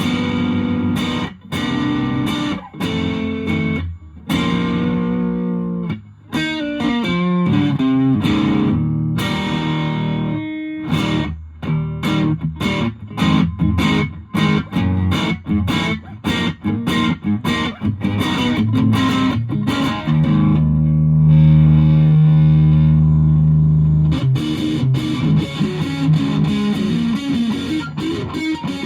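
Electric guitar (Fender Japan Jazzmaster) played through a 1985 Boss DS-1 distortion pedal into an ELK FSB-45 amp: distorted chords and picked riffs, a quick run of notes, and a long held chord about two-thirds of the way through. Picked up by a phone's microphone from the amp.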